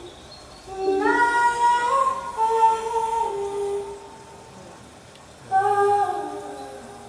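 A woman singing long wordless notes that slide from pitch to pitch. One phrase starts about a second in and lasts about three seconds; a shorter phrase comes near the end and fades away.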